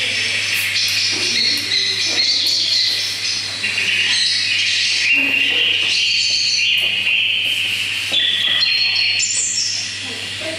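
Recorded birdsong played back over a loudspeaker as a forest sound effect: many small birds chirping and trilling without pause, over a low steady hum.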